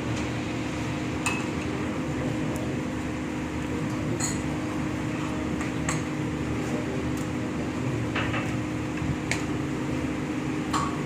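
Light clinks of glassware and cups being handled, about seven separate clicks spread out, over a steady room hum.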